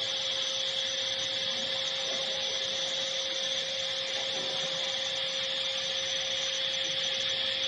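AccTek AKM2060D ATC CNC router running with its circular saw-blade attachment raised clear of the board, not cutting. It makes a steady high whine over a steady lower hum.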